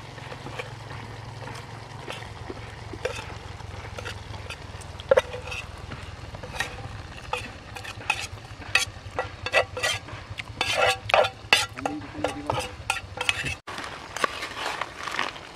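A metal spoon scraping and clinking against aluminium camping cookware as fried tempe is stirred and spooned from a pan into a pot, in quick irregular knocks that grow busier after the middle. A steady low hum runs underneath and cuts off shortly before the end.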